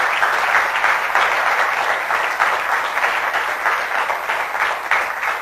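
Audience applauding: dense, steady clapping that thins out a little near the end.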